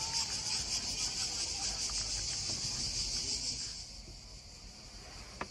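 Crickets chirring in a steady, high, pulsing drone that grows fainter about four seconds in; a short click near the end.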